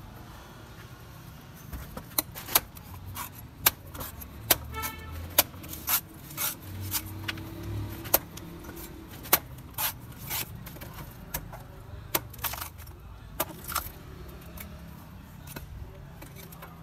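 A large knife chopping into green young coconuts: a long run of sharp, irregular knocks as the blade strikes the husk and shell.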